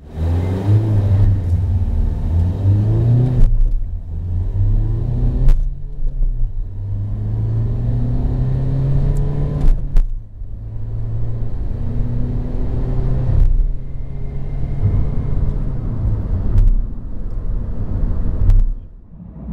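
Dacia Duster's 1.5-litre 110 hp diesel engine, heard inside the cabin, accelerating hard through the gears to about 100 km/h. The revs rise in each gear and fall back at several brief gear changes.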